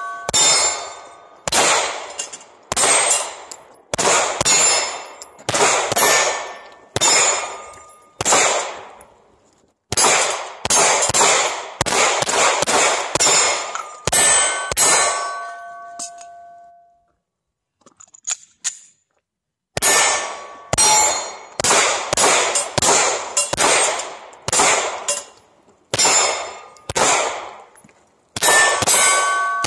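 Handgun shots fired in quick succession at steel plate targets, each hit giving a metallic ring that fades. The string breaks off for about three seconds just past halfway, then resumes at the same pace.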